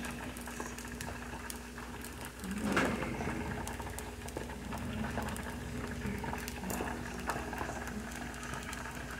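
Fried rice crackling faintly in a hot pan, a fine pattering sizzle, with a steady low hum behind it. There is a brief louder stir about three seconds in.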